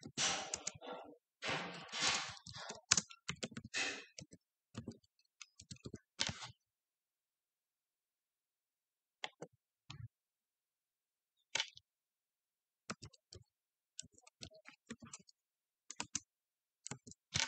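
Faint scattered clicks and short rustling noises in a small quiet room, thickest in the first six seconds, then only sparse single clicks.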